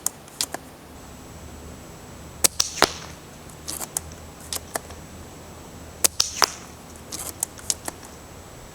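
JG Bar-10 spring-powered airsoft sniper rifle firing 0.4 g BBs: a few sharp snaps, some in close pairs, with clicks between shots.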